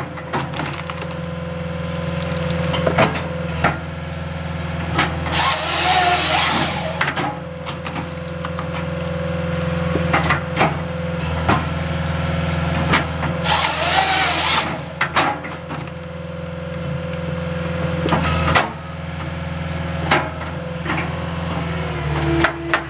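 Skid steer engine running steadily under load as it drives a Halverson HWP-140B firewood processor attachment sawing and splitting logs. Loudness climbs and drops back every few seconds. Sharp knocks and cracks of wood are scattered through it, with two spells of loud rushing noise, about five seconds in and again about thirteen seconds in.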